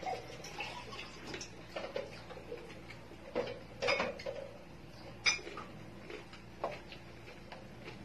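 Close-up eating sounds: a person chewing roast pig's head meat and skin by hand, with scattered sharp mouth clicks and light knocks and clinks of tableware, the loudest about four and five seconds in.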